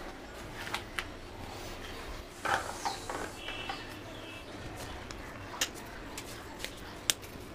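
Light handling sounds: a few sharp clicks and taps as pieces of dough are pinched off and set down on a ceramic plate, over a steady low background noise.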